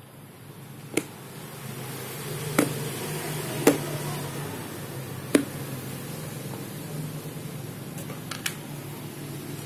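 Snap-clip plastic food container being handled and unlatched: sharp plastic clicks, about four spread over the first half and a quick pair near the end, over a steady low hum.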